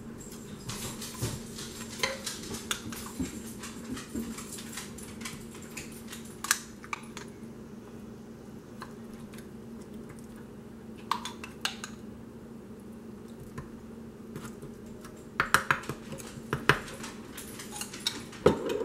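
Metal spoon clinking and scraping against a glass jar and the chicken as pesto is scooped out and spread, in scattered light clicks with a louder run of clinks near the end. A faint steady low hum runs underneath.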